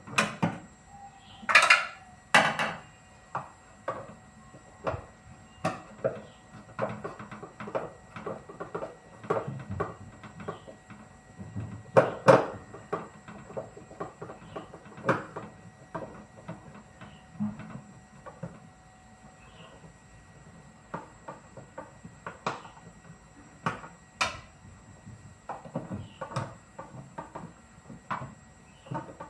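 Scattered clinks and knocks of hand tools and metal parts being handled while a front-loading washing machine is taken apart, with louder clatters about two seconds in and again around twelve seconds.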